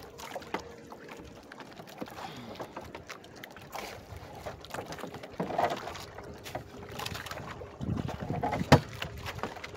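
Small wooden outrigger boat on the water: light knocks and handling noise against wind on the microphone, with one sharp loud knock near the end.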